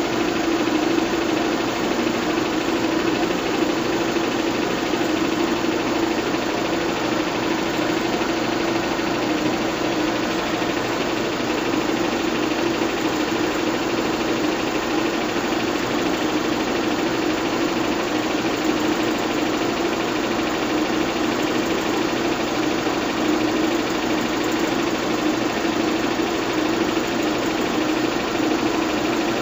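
Bell & Howell 122 LR 8mm film projector running at its highest speed: a steady mechanical whir with a constant low drone.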